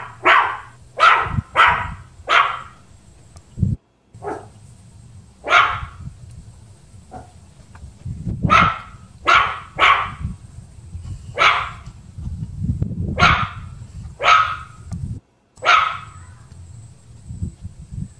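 A dog barking: a quick run of barks at first, then single barks every second or two, over a steady low rumble.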